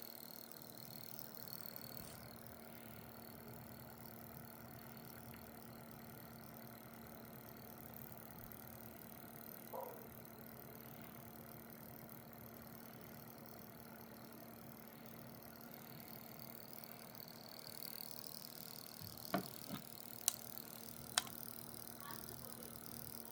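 Homemade three-coil pulse motor with a four-magnet rotor and reed switch running faintly with a low steady hum, with a few sharp clicks about three quarters of the way through.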